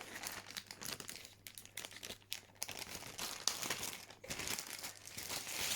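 A small pocket first aid kit being opened and handled: irregular crinkling and rustling of its packaging and wrapped packets, with small scratches and clicks.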